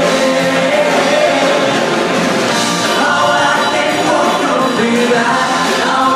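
Live band music with several male singers singing into microphones, loud and steady.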